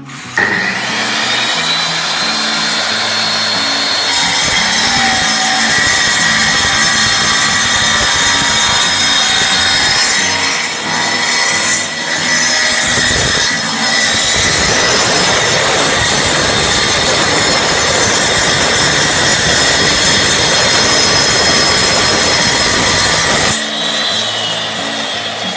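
Longde D7 electric tile cutter starting up with a rising whine, then its water-cooled blade cutting through tile with a loud, steady grinding whine. It winds down with a falling whine near the end.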